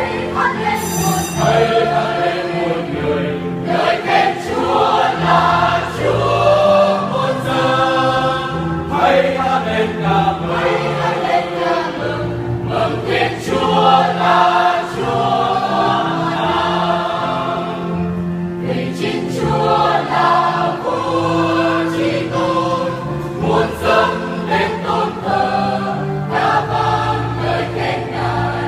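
Choir singing a Vietnamese church hymn in praise of God.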